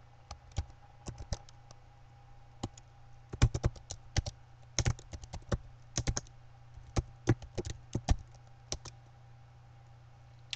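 Computer keyboard being typed on in short irregular runs of key clicks, stopping about nine seconds in, over a faint steady hum.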